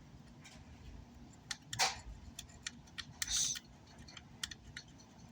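Scattered light clicks and taps, with two short scratchy scrubbing strokes, as a small brush works at burnt residue on an amplifier's circuit board.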